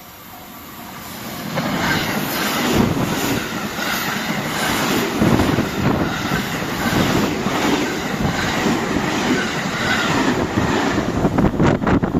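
Train passing a railway level crossing at speed. It swells in over the first second or two, then runs loud with repeated clattering of its wheels over the track. The crossing's warning bell rings faintly at the start before the train drowns it.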